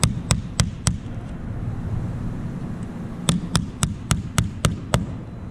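Small nails being tapped in with a light hammer through a plywood gusset plate into the wooden strips of an aircraft rib, the nail held in needle-nose pliers. Four quick taps at the start, a pause, then a run of about seven taps about a second and a half long, roughly three or four a second.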